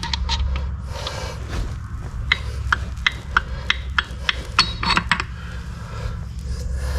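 Hand tools working on metal engine parts: a run of sharp metallic clicks and clinks, about three a second, through the middle, over a steady low hum.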